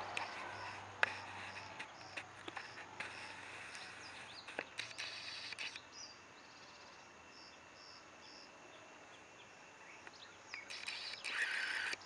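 Quiet rural outdoor ambience with runs of short, high-pitched chirps repeated about two a second. A few sharp clicks are scattered through it, and there is a louder rustling stretch near the end.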